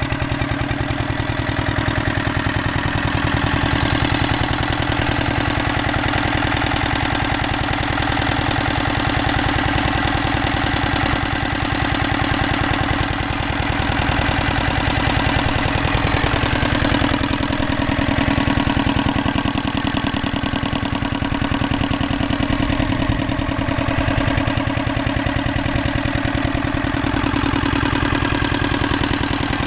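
Petter PAZ1 single-cylinder air-cooled diesel engine running steadily on its own, an even rapid diesel beat that holds constant throughout.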